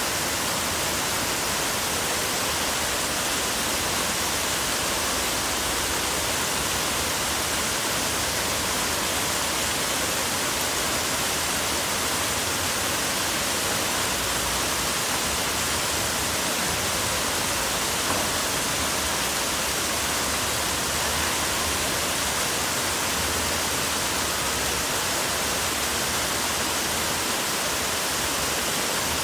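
Revson Fountain's many vertical water jets splashing down into its basin: a steady, even rush of falling water.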